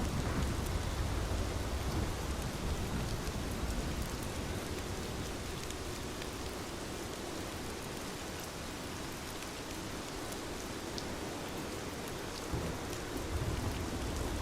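Steady rainfall with low rolls of thunder, one over the first few seconds and another near the end.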